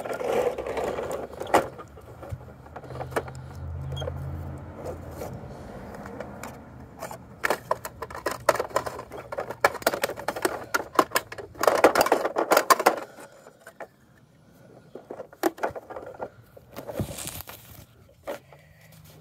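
Plastic toy garbage truck and small toy wheelie bins being handled, with spells of rapid clicking and rattling of plastic parts, loudest about halfway through. A low hum runs for a few seconds starting about two seconds in.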